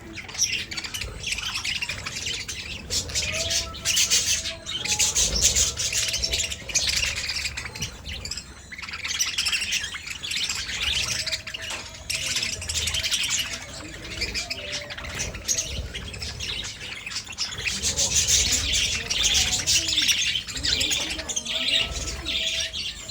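Budgerigars chattering and warbling continuously: a dense stream of rapid high chirps that swells and dips, with a few lower held notes mixed in.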